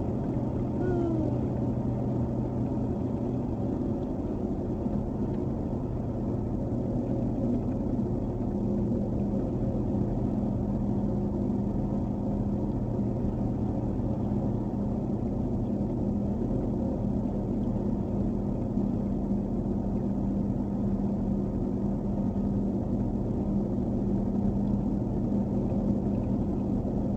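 Steady engine and tyre noise inside a truck's cab cruising on a snow-covered highway on Treadwright Warden retread tyres: a constant low drone, with a higher steady hum joining about eight seconds in.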